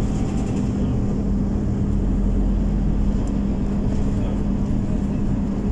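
Scania OmniCity city bus under way, heard from inside the passenger cabin: a steady low drone with a constant hum, plus road rumble.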